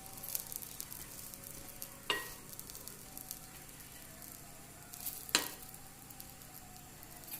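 Bread omelette sizzling faintly as it fries and crisps in an oiled pan, with two sharp clicks, about two seconds and five seconds in.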